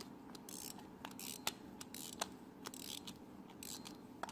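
Faint, irregular clicks and short scraping rasps of a screwdriver turning a carburetor's pilot screw in by hand, easing it down to seat gently at the bottom.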